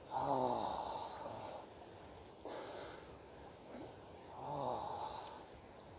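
A man's low, drawn-out groans while swimming in cold water, two of them falling in pitch about four seconds apart, with a short breathy blast between them.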